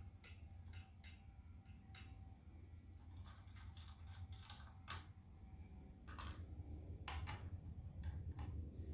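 Faint, irregular clicks and light metallic taps of a flathead screwdriver working the screws that hold a ceiling fan's blades, some clicks coming in quick pairs.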